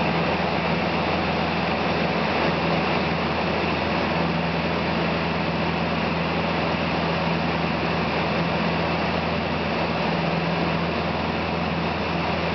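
Small aerobatic plane's engine and propeller running steadily at an even pitch, heard from inside the cockpit.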